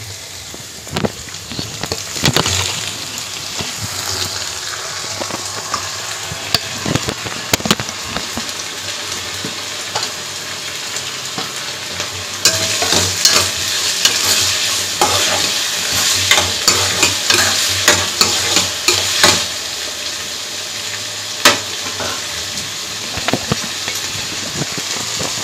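Chopped onions sizzling in hot oil in a kadai, with a steel spoon clicking and scraping against the pan as they are stirred. About halfway through, chopped tomatoes go in and the sizzling turns louder for several seconds before settling back.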